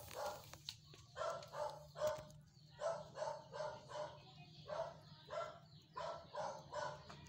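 A dog barking repeatedly, short pitched barks coming about two a second in several runs.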